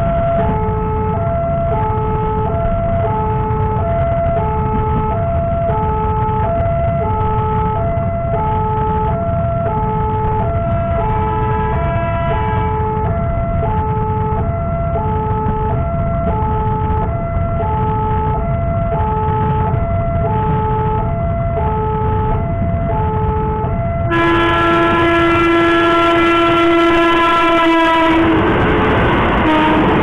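Level-crossing warning alarm sounding a steady two-note alternation over a low rumble. About 24 seconds in, the approaching KRL electric commuter train gives one long horn blast of about four seconds, the loudest sound, which cuts off abruptly. The noise of the train running onto the crossing follows.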